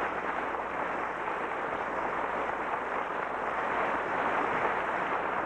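Radio-drama sound effect of wind and sea for a sailing ship underway: a steady rushing noise that swells slightly near the middle.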